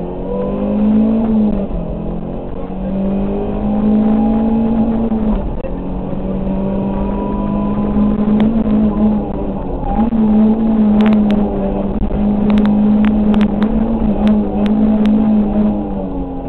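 Rally car engine driven hard, heard from inside the cabin: the note stays high and dips briefly several times as the driver lifts and changes gear. A run of sharp ticks comes in the second half.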